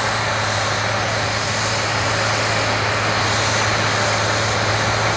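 Large four-wheel-drive tractor's diesel engine running steadily under load while pulling a disc harrow through the ground. It is a constant low drone with an even hiss over it.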